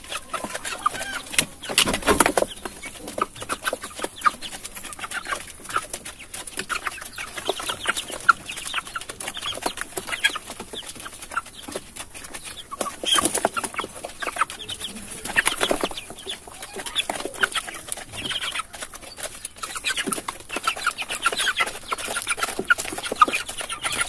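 A crowded flock of white broiler chickens clucking in many short calls, with scattered clicks and a couple of louder thumps, the loudest about two seconds in.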